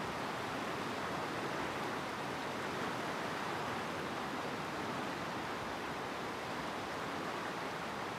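Steady rushing noise, even throughout with no distinct events.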